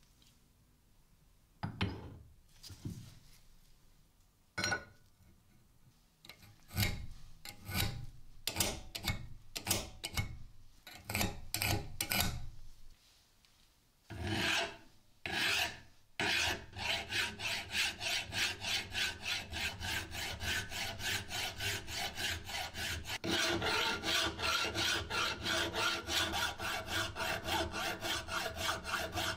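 Hand file scraping across the edge of a steel hammer head held in a vise. At first there are separate strokes with pauses between them. From about halfway the filing turns into a steady, quick run of strokes, roughly three a second, with a faint metallic ring.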